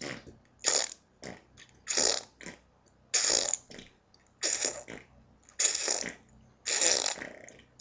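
A person making fake fart noises over and over: six short, spluttering bursts, about one every second.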